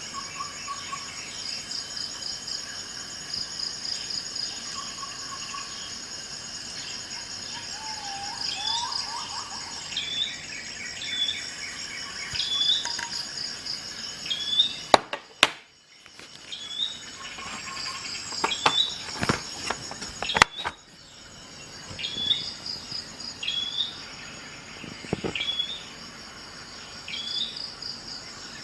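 Insects trilling steadily, with a bird repeating a short chirping call every second or two. A couple of sharp clicks around the middle are the loudest sounds.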